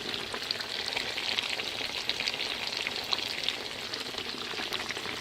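Pork chops frying in hot fat in a frying pan: a steady sizzle, thick with small crackles and spitting pops.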